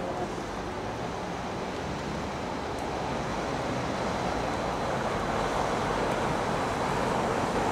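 Black Five 4-6-0 steam locomotive working along the line, a steady rushing noise of exhaust and running that grows gradually louder as it comes closer.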